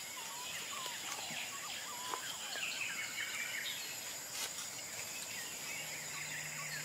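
Forest ambience: a steady high-pitched insect drone with many short, scattered bird chirps. A faint low hum comes in near the end.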